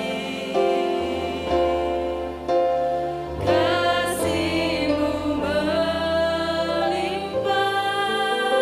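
A song with singing over instrumental accompaniment: held sung notes change about once a second over a moving bass line.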